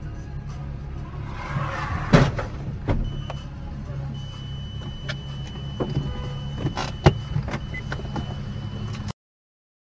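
Car engine humming steadily, heard from inside the cabin. About two seconds in comes a loud sharp bang, the sound of a motorcycle striking the car, with a smaller knock just after. From about four seconds a steady high beep sounds, and a few more sharp knocks come around seven seconds.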